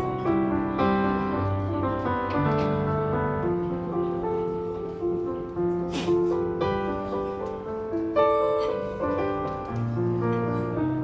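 Solo piano playing an instrumental interlude of a folk-song accompaniment between sung verses, with steady chords and a moving bass line.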